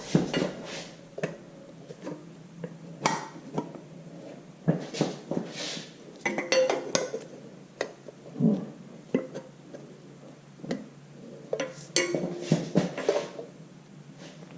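New cylinder sleeve being worked into the number 2 bore of a 1954 Farmall Super MTA engine block: irregular metallic clinks and knocks, some in quick runs, as the sleeve is squared up and pressed down.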